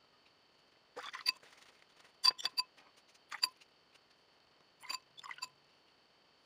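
A paintbrush tapping against a hard container, making light ringing clinks in four short clusters of a few taps each.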